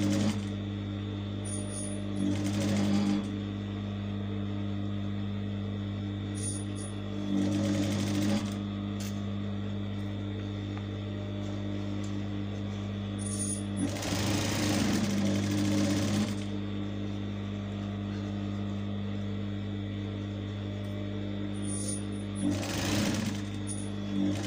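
Industrial sewing machine top-stitching through the layers of a fabric bag. The needle runs in about five short bursts, the longest about two seconds midway, over a steady low hum.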